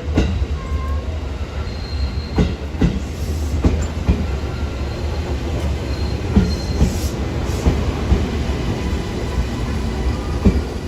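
Electric train running past, its wheels knocking over rail joints at uneven intervals over a steady low rumble, with a faint high wheel squeal twice.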